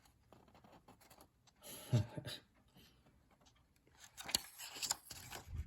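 Faint rustling and scraping of paper and packaging being handled, with a short cluster of clicks about four seconds in.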